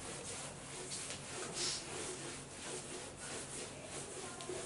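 A whiteboard being wiped clean by hand, with repeated rubbing strokes across the board.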